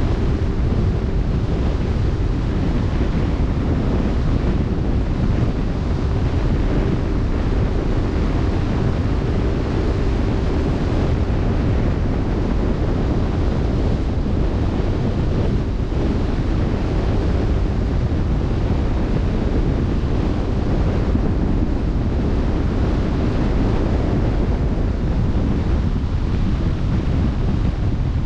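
Steady wind buffeting the microphone over the rush of open-sea waves: a constant noise heavy in the low end. A faint steady hum sits under it for roughly the first ten seconds.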